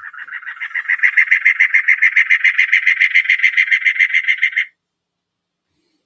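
Recorded cactus wren song: a long, raspy run of rapid, evenly spaced harsh notes, about seven a second, growing louder over the first second and stopping abruptly near the end.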